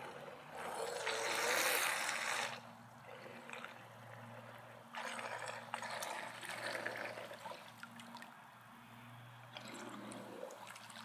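Radio-controlled model submarine churning and splashing at the pool surface in three bursts, loudest for about two seconds near the start, with a faint steady low hum underneath.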